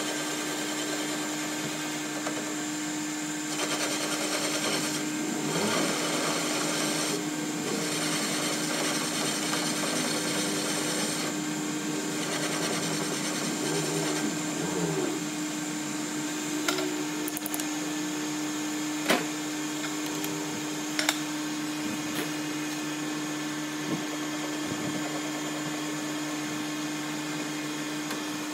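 Metal lathe running with a steady hum while a cutting tool turns the end of a long metal shaft held in the chuck. The cutting is louder in the first half, and a few sharp clicks come in the second half.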